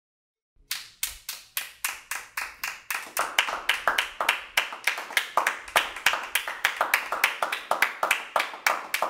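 A few people clapping their hands. It starts from silence about half a second in as a single steady clap of roughly three or four a second, and grows denser and louder as more hands join about three seconds in.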